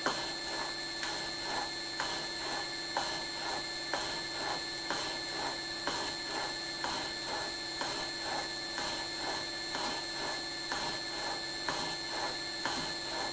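Bridgeport milling machine's slotting head running, its ram stroking up and down as the cutter shapes a keyway, with a thump at each stroke in a regular rhythm over a steady motor whine.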